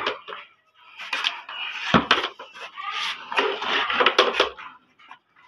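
A metal ladle scraping and scooping through cooked rice in a large aluminium cooking pot (deg), in repeated scraping strokes, with a sharp knock about two seconds in.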